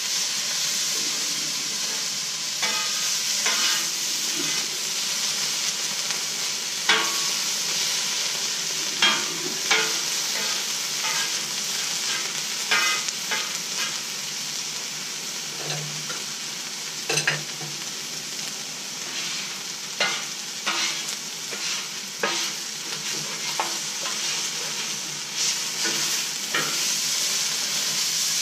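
Diced chicken sizzling on a Blackstone flat-top griddle's steel cooktop, with a metal spatula scraping and clacking irregularly against the steel as the pieces are stirred and pushed around.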